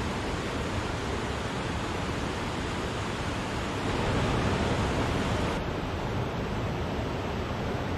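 Wachirathan Waterfall, a steady, continuous rush of falling water that swells slightly about halfway through.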